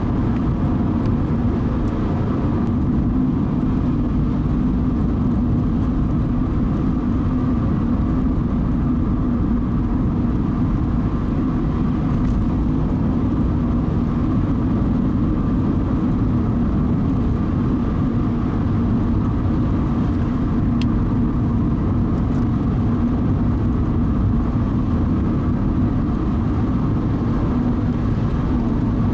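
Steady road noise from a car being driven: tyre rumble and engine hum at an even, unchanging level.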